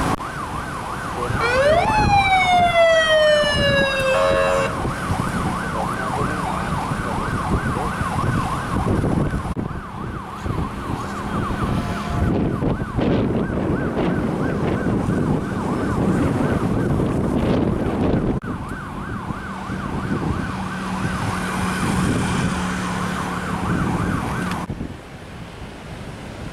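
Emergency-vehicle sirens of a road convoy, wailing and warbling fast, with one long siren sweep near the start that rises quickly and then falls slowly. Engine noise runs beneath, and the sound breaks off abruptly a few times.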